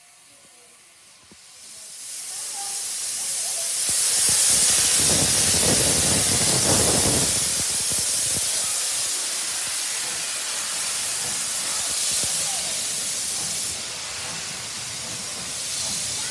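Steam hissing from the open cylinder drain cocks of an L&YR Class 23 0-6-0 saddle tank engine as it starts away. The hiss builds over the first few seconds, is loudest about five to seven seconds in, and then carries on steadily as the engine moves off.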